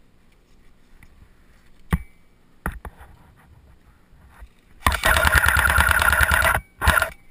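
JG AKS-74U airsoft electric gun firing on full auto: a rapid, loud burst of about a second and a half, then a short second burst. Two sharp clicks come a few seconds earlier.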